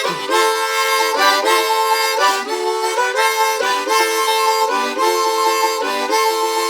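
Blues harp (harmonica) playing a blues riff of chords and single notes that change about every half second, with short breaks between phrases.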